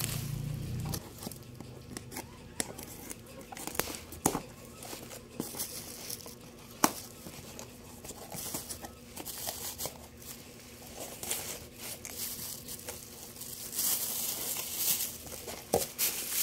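Cardboard box and plastic packaging being handled and opened by hand: crinkling of plastic bags and bubble wrap with scattered short taps and rustles, busier near the end.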